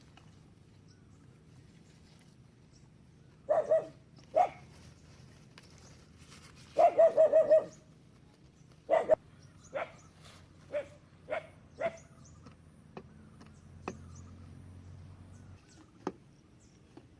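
A dog barking in short yaps: a couple of barks, then a quick run of about six, then single barks spaced out a second or so apart.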